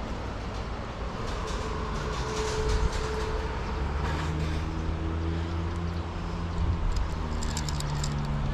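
Low steady rumble of a motor, with an even humming drone that sets in about four seconds in.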